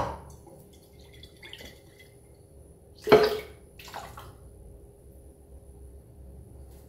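Milk sloshing and pouring as a small glass bottle is rinsed out with milk and emptied into a blender jar. There is a short, louder burst about three seconds in and a weaker one a second later.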